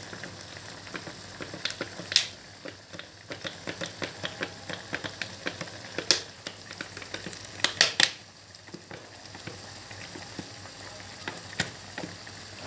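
Chicken pieces simmering in a kadai of thin white gravy, bubbling with many small quick pops, while green chili sauce is squeezed from a plastic bottle into it; a few louder sharp splats and clicks come about two seconds in, around six seconds and just before eight seconds.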